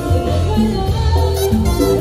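Live band playing upbeat Latin dance music, with a prominent bass line under horns, keyboards and percussion.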